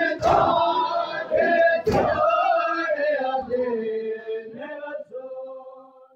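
A crowd of men chanting together in Shia Muharram mourning (matam), their voices drawn out into long held notes that trail off near the end. Two sharp slaps, about a quarter-second and two seconds in, are the beating of chests.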